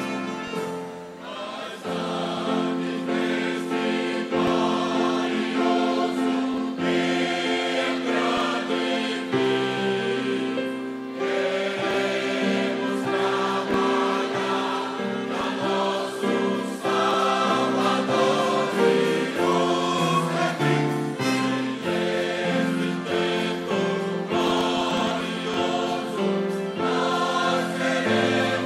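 Choir singing a gospel song in parts, holding long chords that change every second or two.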